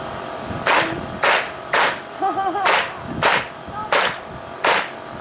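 A string of seven sharp gunshots, about two-thirds of a second apart.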